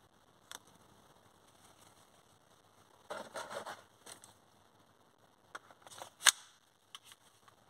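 Handling noise from an airsoft gas blowback pistol and its magazine: a single click about half a second in, a short clatter about three seconds in, then a run of clicks, the loudest and sharpest about six seconds in, with a few small ticks after.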